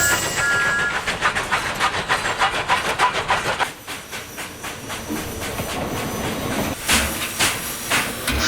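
Steam locomotive sound effects: fast rhythmic chuffing, about four beats a second, which fades after about three and a half seconds into a softer steady hiss of steam. A few sharp knocks come near the end.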